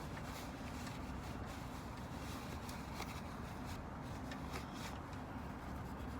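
Faint scattered clicks and rustling of hands handling parts and tools in a car's engine bay, over a steady low background rumble.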